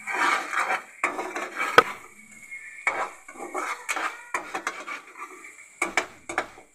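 Metal slotted spoon stirring thick masala in a metal pot, scraping and knocking against the pot's sides and base, with one sharp clank about two seconds in. Near the end the strokes quicken to about three or four a second.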